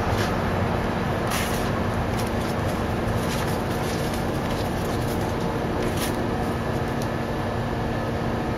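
Steady mechanical hum and hiss, with a few faint clicks.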